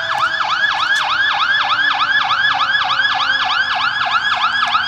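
Electronic siren of a responding fire apparatus in fast yelp, sweeping up and down about five times a second. A lower steady tone slowly sinks in pitch underneath it.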